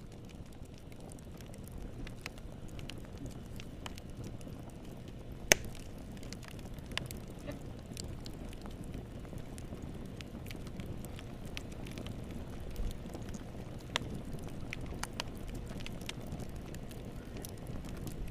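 Wood fire burning in a fireplace: a steady low rumble with scattered sharp crackles and pops, the loudest about five and a half seconds in.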